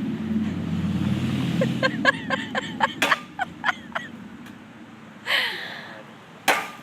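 A road vehicle's engine rumbling past, fading out after about two seconds. It is followed by a quick run of short high calls and two sharp knocks, one about halfway through and one near the end.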